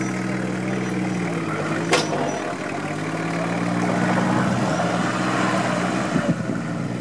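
Nissan Patrol SUV engine running steadily at low revs as the vehicle crawls over a mound of loose soil. A single sharp click sounds about two seconds in.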